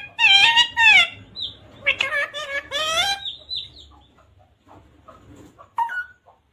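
Pet parrot calling: a run of high-pitched, bending squawky calls in the first three seconds, then a few soft short chirps and one brief call near the end.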